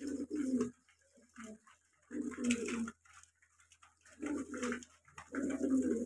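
Fancy domestic pigeons cooing: four short bouts of low, throaty coos, each made of two or three quick pulses, spaced a second or two apart.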